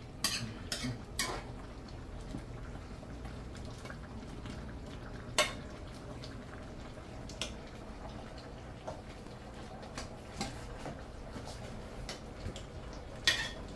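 A metal spoon knocking and scraping against a pot of stew as it is stirred and scooped: a few sharp clinks spread out, three close together at the start and the loudest about five seconds in.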